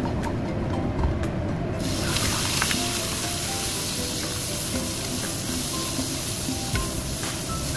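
Sliced raw meat frying in hot oil in a wok: a hiss of sizzling that jumps up suddenly about two seconds in and holds as the meat is stirred with a wooden spatula, with a few light clicks, over soft background music.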